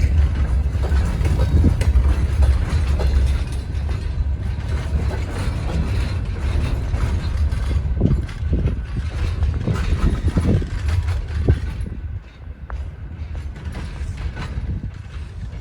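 Freight train rolling slowly past: a low rumble with creaks and knocks from the wagons and wheels, the rumble dropping off about twelve seconds in.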